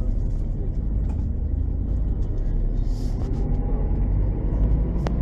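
LAZ-699R bus engine, a ZIL-375 petrol V8, running steadily with a deep, even sound and no revving, and one sharp click near the end.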